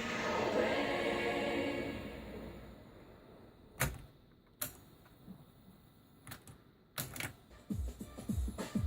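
Music played from a cassette tape fades out over the first few seconds. A quiet stretch follows with about six sharp clicks, the loudest near four seconds in. A new song with a steady low beat starts near the end.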